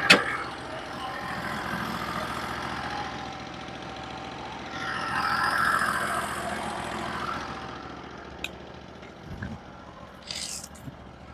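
Portable bandsaw mill's engine idling steadily, with a sharp knock right at the start, a swell of higher-pitched noise about five seconds in that fades away, and a few light clicks near the end.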